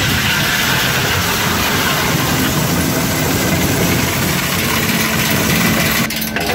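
ARP EZ 100 single-shaft shredder running steadily as it shreds aluminium: a loud, even, dense noise over a low hum. Near the end it gives way to separate knocks.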